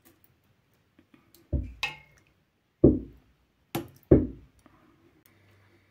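Ladlefuls of thick, mashed mulberry pulp dropping into a sieve: three heavy wet plops, with two sharp clinks of the ladle between them.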